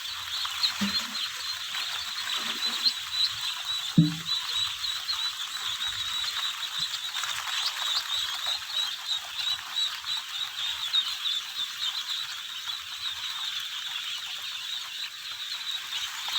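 A large crowd of Indian Runner ducklings peeping continuously, many overlapping high-pitched calls making a steady chatter. A brief low sound stands out about four seconds in.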